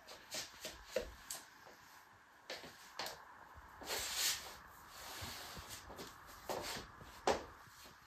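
Soft scuffs, taps and rubs of feet and fluffy house slippers on a hard floor as feet are slipped into the slippers and shuffled about: scattered short sounds, with one longer rub about four seconds in.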